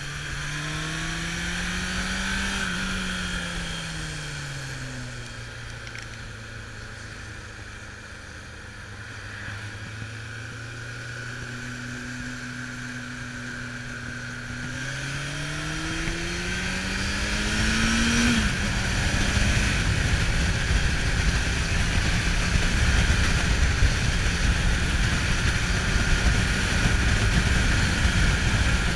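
Kawasaki Zephyr 750's air-cooled inline-four engine, heard from the rider's seat, rising and falling in pitch as the throttle is opened and closed through the bends, with a long steady stretch on light throttle. From about two-thirds of the way in, a loud rush of wind on the microphone covers the engine.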